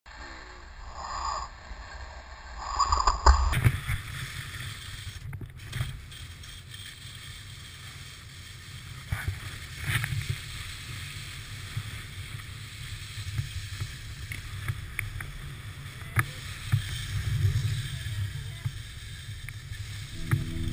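Wind buffeting a moving camera's microphone, a fluctuating low rumble, with skis sliding and scraping over packed snow and a few faint clicks. The first three seconds or so hold a different, muffled stretch before the rumble sets in.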